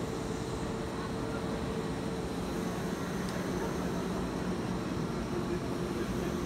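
Kintetsu electric train pulling slowly into the platform and braking to a stop, with the steady noise of its running and a faint hum that sits lower in pitch as it slows. Low chatter from people on the platform.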